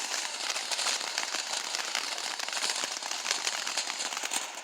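A firework crackling: a dense, steady run of tiny pops and fizzing.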